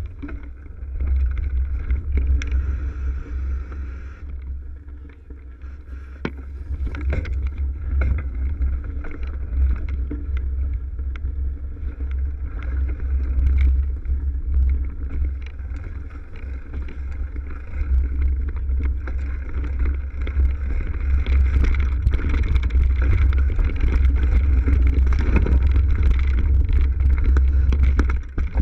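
Mountain bike riding a rough, leaf-covered dirt trail, heard through a GoPro's microphone: a heavy rumble of wind and motion against the mic, with the bike's rattle and frequent clicks and knocks as the tyres go over bumps and litter, louder in the second half.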